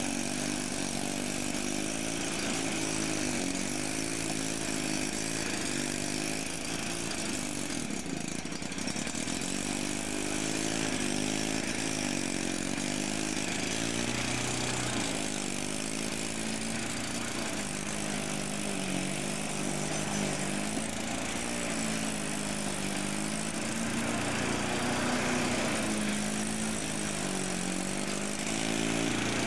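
Sachs KM3 110 cc Wankel rotary engine on a Wolf lawnmower running under load while cutting grass, its pitch wavering up and down as the load changes.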